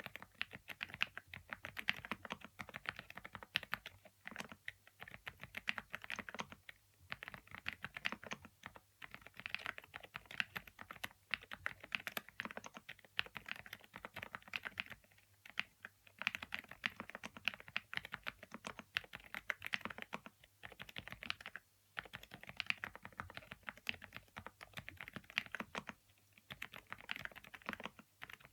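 Typing on a SMACKAPE Impact 80 Pro mechanical keyboard fitted with Keychron Silent K Pro silent switches: quick, continuous runs of keystrokes broken by brief pauses.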